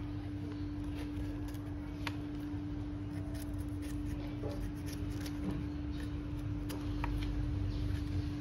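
Knife slicing the skin off a pineapple: faint scraping cuts and a few light clicks, over a steady low hum.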